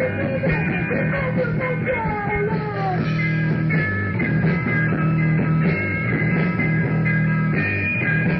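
Japanese punk rock band playing live, with electric guitar, bass guitar and drums, in a muffled, lo-fi recording. A few falling pitch slides sound over the first three seconds.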